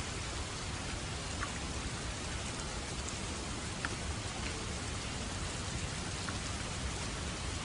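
Steady rain falling on a surface, an even hiss with a few distinct drops heard now and then.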